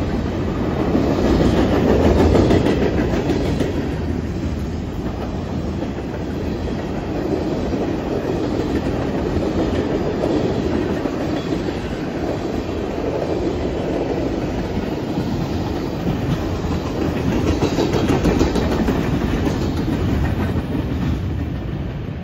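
Tank cars and covered hoppers of a CN freight train rolling past at close range, their steel wheels clattering steadily on the rails. The sound swells about two seconds in and again near the end.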